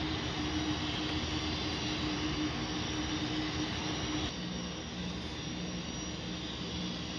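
Model gas-turbine locomotive's sound system playing a steady jet-like turbine roar with a held hum under it, as the train of reefer cars runs. The hum drops lower and the roar eases about four seconds in.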